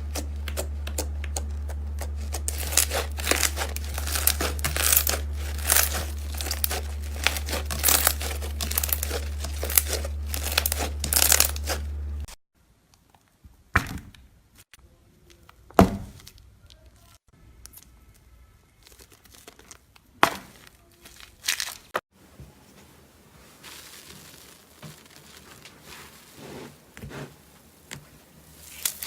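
Slime being handled, with dense crackling and popping over a steady low hum for the first twelve seconds. After a sudden cut, the hum is gone and sparser, quieter pops and squelchy clicks follow.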